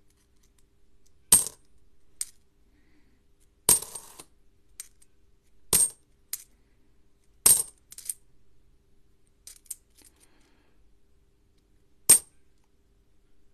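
Australian 50-cent coins, twelve-sided and cupronickel, clinking against one another as they are handled in a stack in the fingers. About a dozen sharp metallic clinks, each with a brief high ring, come at uneven intervals.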